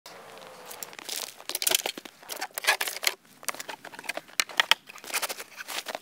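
Snow crunching in irregular bursts, about one or two a second.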